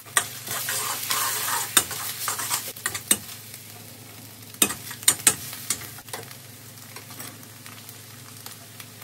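Beaten egg sizzling in hot peanut oil in a wok with shallots and garlic, being stirred and scrambled with a metal ladle. The sizzle is loudest for the first few seconds and then settles lower, with a few sharp clinks of the ladle against the wok in the middle.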